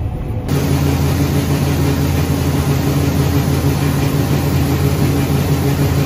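Two John Deere combines running steadily while their unloading augers pour wheat into a grain trailer: a constant engine hum under a hiss of falling grain, starting abruptly about half a second in.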